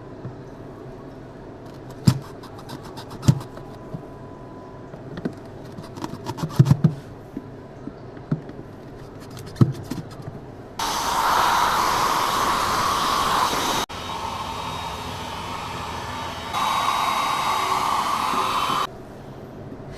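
Clicks and knocks of handling, then a handheld electric blower switched on, running with a steady rush of air. It drops to a lower setting about three seconds later and comes back up to full for a couple of seconds before cutting off, as used to clear or thaw a refrigerator's drain.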